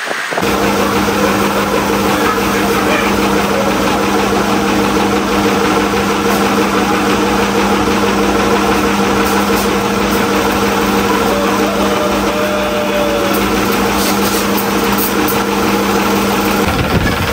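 A motor running at a steady speed, giving an even, unchanging hum.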